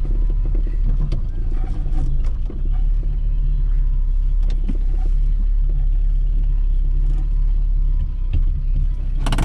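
Austin Allegro 1500's E-series four-cylinder engine running steadily at low speed while the car is manoeuvred, heard from inside the cabin. A sharp click comes near the end.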